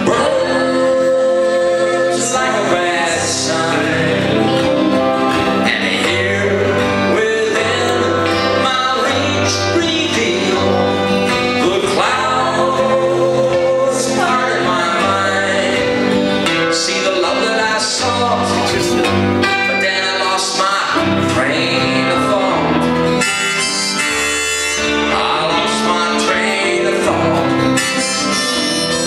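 Live band music: acoustic guitar and bass under a harmonica carrying the melody.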